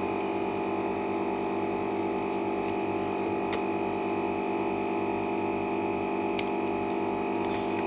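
Steady electrical hum with a thin high whine from bench equipment, unchanging throughout, with a few faint light clicks from handling the screen.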